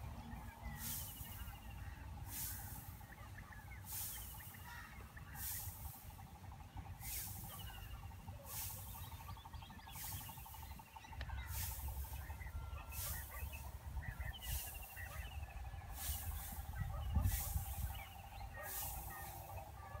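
Common quail (batair) calls repeating about every second and a half, each a short sharp hissing burst, over faint small bird chirps and a low rumble.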